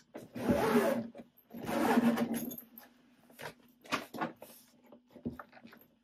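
Suitcase zipper pulled open in two long runs, followed by a few light clicks and knocks as the case is handled.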